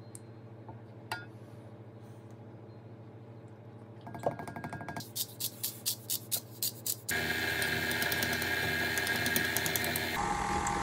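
Faint hum with a single click, then a hand-twisted salt grinder clicking evenly, about three clicks a second, and from about halfway through a KitchenAid Artisan stand mixer running steadily with its paddle beater turning in the pie filling.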